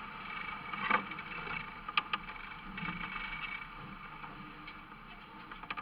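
A boat's engine running steadily, with a few sharp knocks or clicks on board, two of them close together about two seconds in.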